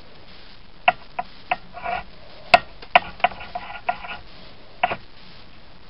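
Small metal air-rifle sight parts clicking and clinking together as they are handled and fitted: about nine sharp clicks over four seconds, some followed by a short metallic ring, the loudest about two and a half seconds in.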